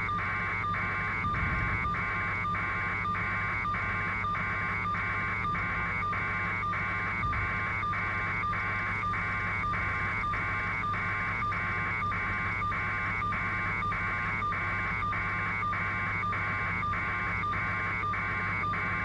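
Helicopter cabin noise heard over the intercom feed: a steady low hum with a higher tone that pulses evenly about two and a half times a second.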